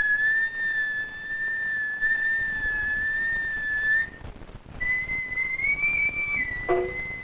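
Music: a high, pure whistle-like note held for about four seconds, then after a short break a second, slightly higher note that bends up and settles. Soft plucked notes sound under it near the end.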